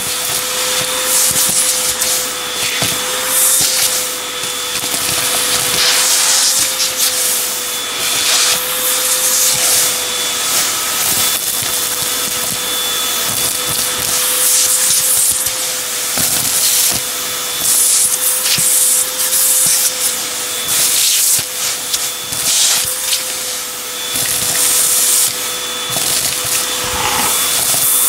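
Vacuum cleaner running steadily with a constant motor whine, its hose and crevice tool sucking up loose grit and chips, which crunch and rattle in irregular bursts.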